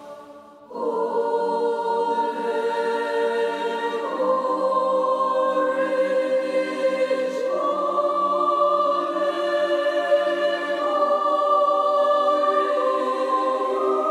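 A choir singing long sustained chords as background music, coming in under a second in and moving to a new chord every three to four seconds.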